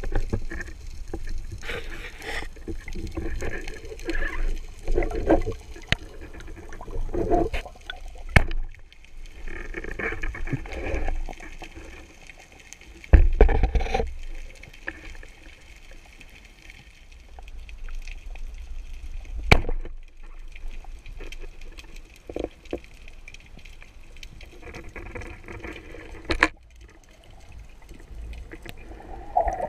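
Water sloshing and gurgling around a camera in the sea, in uneven swells with low rumbles, and a few sharp knocks, the loudest about a third of the way in.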